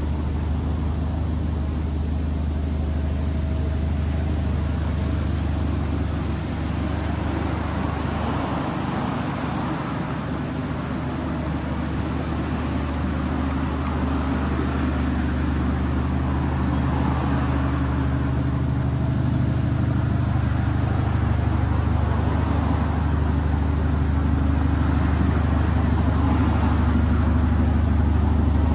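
Subaru Impreza STI (GRB) turbocharged flat-four running through an aftermarket muffler, a steady low engine note that shifts a little in pitch now and then.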